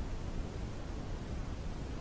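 Steady background hiss with a low rumble, with no distinct sound event.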